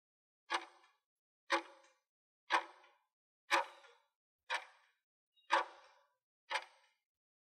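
Countdown timer sound effect: a clock tick once a second, seven short ticks, each fading quickly.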